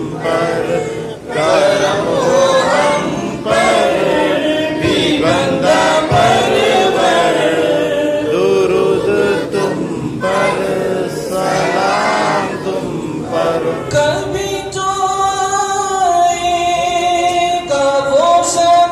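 Men's voices singing an Urdu devotional salam together in a loose melody, with long held notes near the end.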